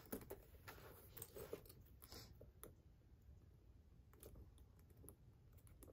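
Faint scattered clicks of a metal chain strap and its clasps being handled and hooked onto the rings of a small leather pouch.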